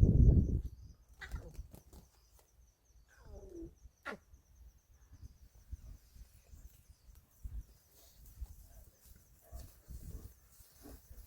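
Lion cub calling: a falling mew about three seconds in, then a short sharp call just after. A loud low burst at the very start, and a faint insect trill early on.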